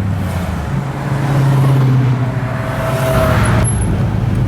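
Car engine running, growing louder about a second in, amid cruise-night traffic.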